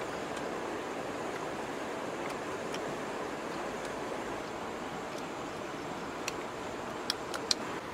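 A steady rushing hiss of outdoor background noise, with a few sharp clicks near the end.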